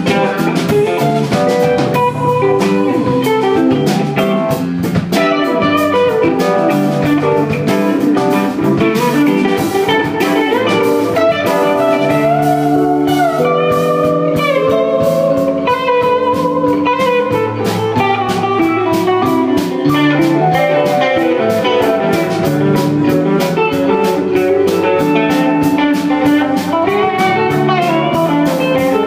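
Live rock band playing: electric guitars over bass, keyboard and drum kit, loud and continuous.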